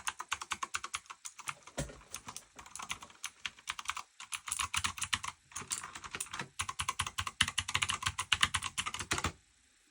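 Typing on a Razer BlackWidow V3 Mini wireless mechanical keyboard: fast runs of key clicks with a couple of short pauses. The typing stops suddenly about nine seconds in.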